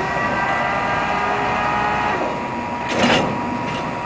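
A crane moving a boxcar: a mechanical whine with several high tones for about two seconds over a steady hum, then a short burst of noise about three seconds in.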